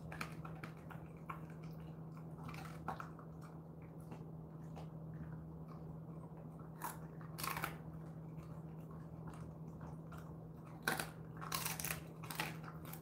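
A Jindo dog chewing and crunching a dried chicken foot: quiet gnawing, with a couple of sharp crunches about seven seconds in and several more near the end, over a steady low hum.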